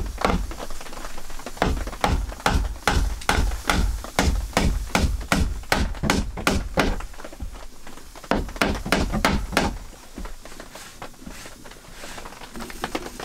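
Hammer driving nails into a wooden plank shelf, a run of sharp knocks at about three a second with a brief pause partway, stopping about ten seconds in.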